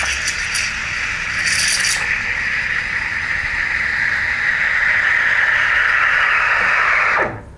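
Simonelli Appia II espresso machine's steam wand steaming milk in a stainless pitcher: a loud, steady hiss with crackling, sputtering bursts in the first two seconds as the tip draws air into the milk, then a smoother steady hiss as the milk is rolled and heated. The steam shuts off abruptly near the end.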